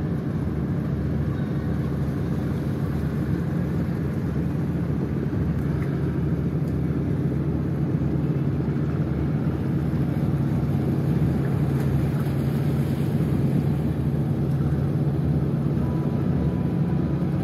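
Boat engine running with a steady low rumble and hum.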